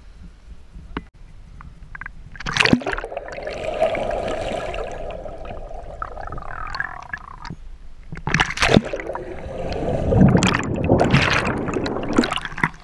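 A splash into the water about two and a half seconds in, then muffled gurgling and bubbling heard from under the water, with more splashing and churning bubbles in the second half.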